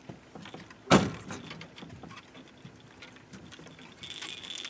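A sharp knock on the boat about a second in, then light clicks and handling of fishing tackle. Near the end, a metallic jingling rattle starts as the line rattle on the drag rig is shaken.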